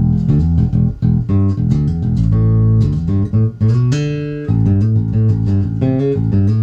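Spector Legend Custom 5-string electric bass with old D'Addario Pro-Steel strings, played through a Warwick TubePath 10.1 tube amp and WCA 410 cab: a busy line of many short plucked notes. The bass's onboard EQ is flat and the amp's high boost is off, so this is the strings' own brightness.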